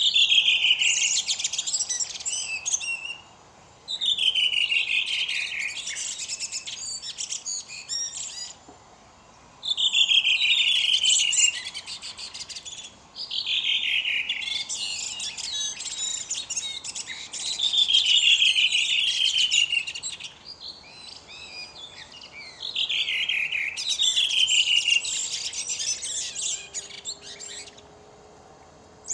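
Caged songbird singing: a run of song phrases a few seconds long, each made of quick downward-sweeping notes, with short pauses between phrases.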